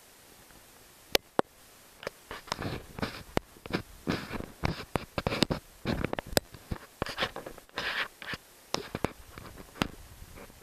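Two sharp clicks, then several seconds of irregular rustling, scraping and clicking handling noises.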